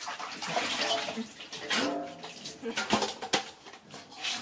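Water splashing and sloshing in a stainless steel basin as a baby monkey is washed by hand. A brief voice sounds about two seconds in, and there are a couple of sharp knocks about three seconds in.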